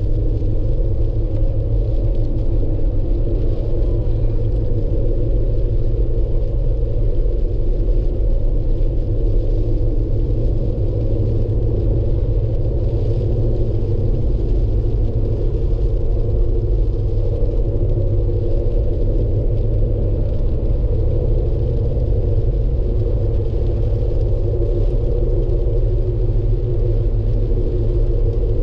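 A moving vehicle's steady road and engine rumble, even and unchanging throughout.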